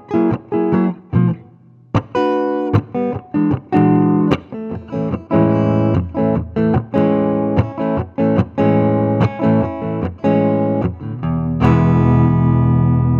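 Guitar played dry, without delay: a run of picked notes and short chords that each stop cleanly, then a final chord about three-quarters of the way through that is left ringing. The guitar is a little out of tune.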